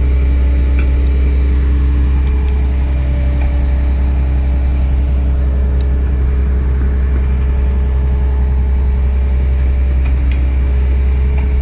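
Diesel engine of an old Mercedes-Benz truck-mounted concrete pump running at a steady speed, with an even, unchanging hum.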